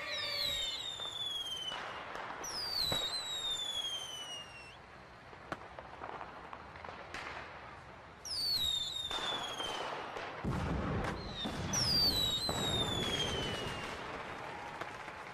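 Fireworks: four whistles, each falling in pitch over a second or two, with sharp cracks and crackling between them, the crackling heaviest about two thirds of the way through.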